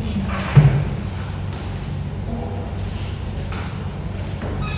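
Utensils and food containers clicking and knocking as several people eat at a table: a handful of short sharp clinks, the loudest about half a second in, over a steady low hum.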